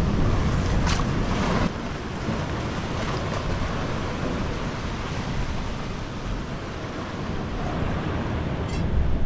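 Wind rumbling on the microphone over the rush of sea surf, with a few sharp knocks in the first two seconds and once more near the end.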